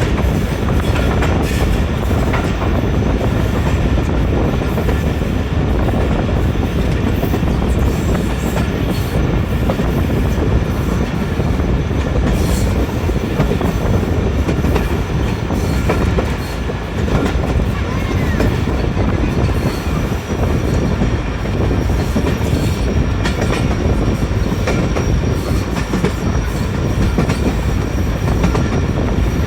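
Pakistan Railways train running along the track: a steady loud rumble of wheels on rail, with the clickety-clack of rail joints.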